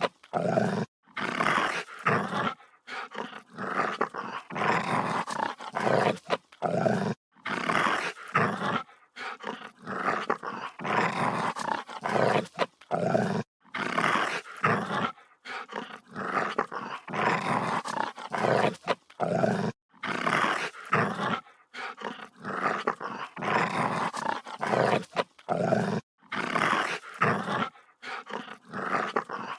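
Dog growling aggressively in a long run of rough growls, each lasting about a second, broken by short pauses.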